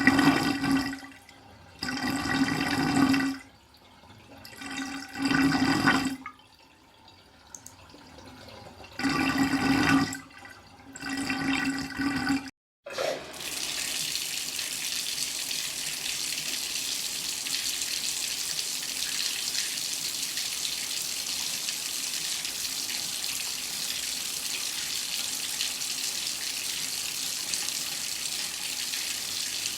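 Water tap running steadily into a sink, an even splashing hiss, which starts after a brief break about 13 seconds in. Before the break, water gushes in about five short bursts that start and stop, each carrying a steady pipe hum.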